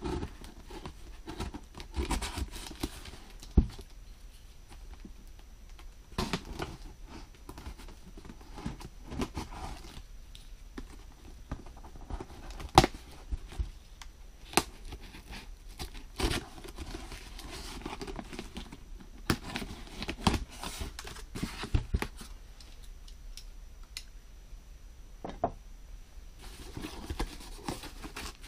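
Packing tape being peeled and torn off a cardboard box, with the cardboard flaps rasping and knocking as the box is handled. The rips come irregularly, mixed with sharp clicks and taps.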